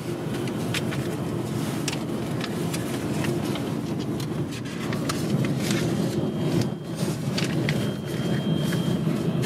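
Steady rumble of airport apron noise from aircraft engines and ground vehicles, with scattered sharp clicks throughout and a faint thin whine from about six seconds in.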